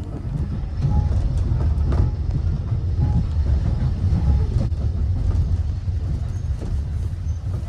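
Heritage railway carriage running along the track: a steady low rumble with scattered knocks and rattles.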